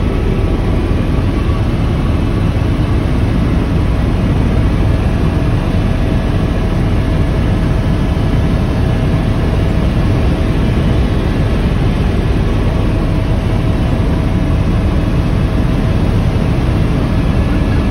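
Helicopter engine and rotor noise heard from inside the cabin in flight: a loud, steady low rumble with a faint steady whine above it.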